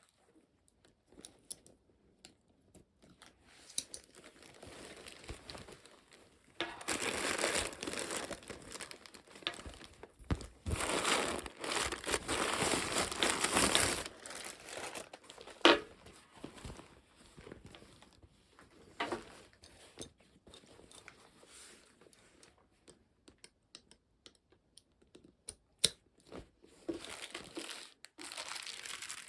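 Packaging crinkling and rustling as it is handled, in irregular spells with a long, louder stretch about a quarter of the way in and a sharp click or two later on.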